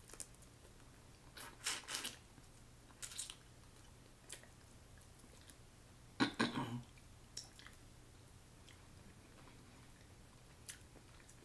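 Snow crab legs being cracked and picked apart by hand, with chewing and mouth sounds in short scattered bursts; the loudest comes about six seconds in.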